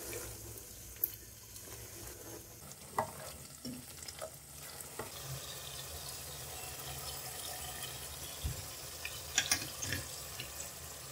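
Goat meat and yogurt sizzling gently in hot oil in a pot while being stirred and turned with a spatula, with a few light knocks and scrapes against the pot. This is the bhuna stage, frying the meat down with its spices and yogurt.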